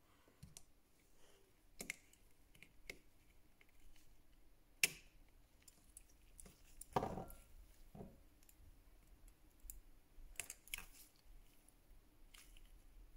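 Scattered small clicks and taps of hand tools and parts on a Samsung Galaxy S6 Edge during a screen replacement, with a sharp click just before five seconds in and a heavier, duller knock about two seconds later.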